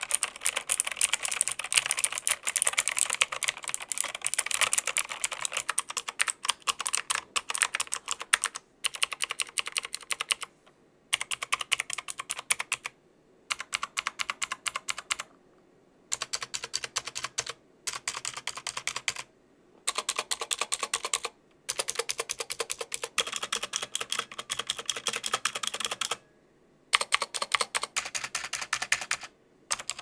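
Typing on a Pictek full-size mechanical keyboard with clicky, tactile Content blue switches: a dense run of sharp key clicks in quick bursts, broken by several brief pauses.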